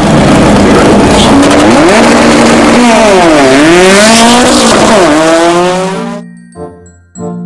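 Racing car engine revving loudly with tyre screech, its pitch dipping and then climbing again about halfway through; it dies away about six seconds in.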